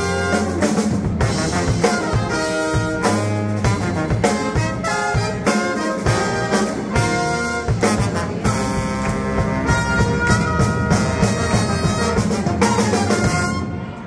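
Live brass band playing: trumpets, saxophone, trombones and sousaphone over a drum kit, with short punchy horn phrases on a steady beat.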